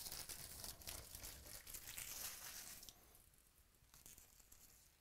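Faint rustling and crinkling of trading cards and packaging being handled, with scattered light clicks, dying away about three seconds in to near silence.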